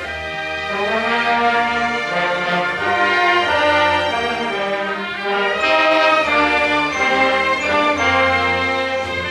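A junior high school symphony orchestra, strings and brass together, playing sustained chords that change every second or so.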